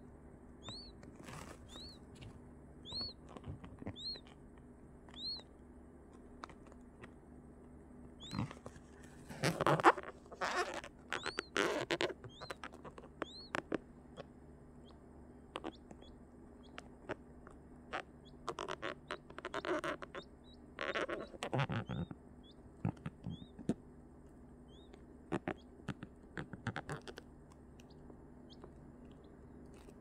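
Newly hatched quail chick peeping: short, high, arched peeps, about one a second at first, then scattered. Bursts of rustling on tissue paper come in between, loudest about ten seconds in.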